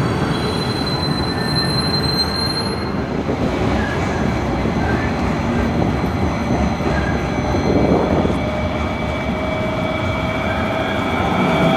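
NJ Transit Hudson-Bergen Light Rail trains running on street track: a steady rumble with a thin, high wheel squeal over the first few seconds, then a lower hum that comes up near the end as an approaching light rail vehicle draws close.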